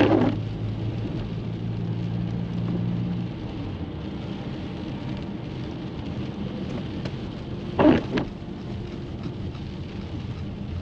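Steady rain hiss with a low vehicle hum that stops a little over three seconds in. Two short, loud knocks stand out, one at the start and a quick double about eight seconds in.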